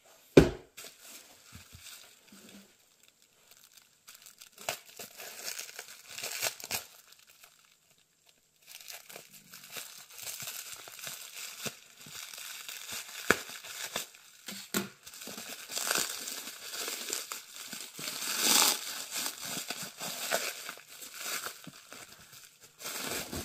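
Plastic wrapping on a bundle of old books being crinkled and torn as it is pulled off, in a long stretch of crackling that starts about a third of the way in. A single knock comes just after the start, like a book set down on the wooden table.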